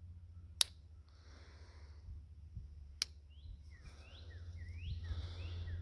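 Two sharp metallic clicks about two and a half seconds apart, typical of a pocket knife's blade snapping on its backspring. A run of short falling chirps follows in the second half, over a low steady hum.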